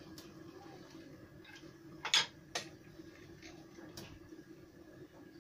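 A wooden spoon knocking and scraping against a stainless steel pot as stew is scooped out. It gives a few scattered clicks, the loudest about two seconds in, over a faint steady hum.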